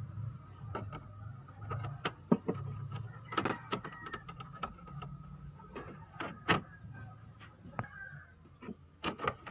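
Handling noise from a small circuit board and the plastic parts of an opened inkjet printer: irregular sharp clicks and knocks as the board is lifted and set back in place, over a low steady hum.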